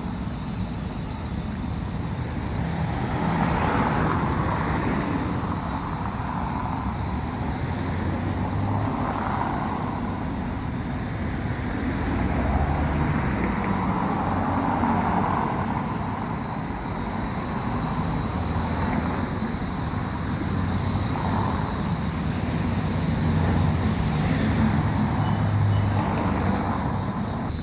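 Steady vehicle noise with a low rumble that swells and eases every few seconds, like a car on the road.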